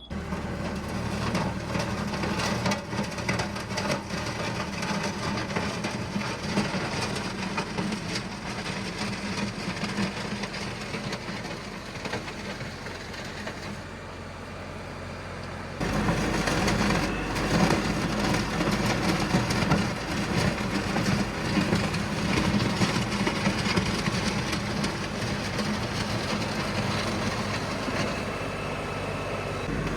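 The 57-horsepower diesel engine of an LS MT357 tractor running steadily under load while grading a gravel driveway. It grows louder about halfway through.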